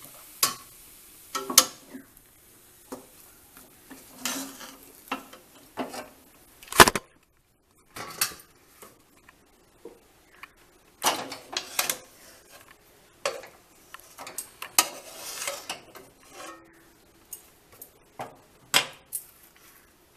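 Steel spatula scraping and knocking against a steel kadai and a steel plate as thick rice-and-coconut dough is scooped out: irregular clinks and short scrapes, with one sharp, loudest knock about seven seconds in.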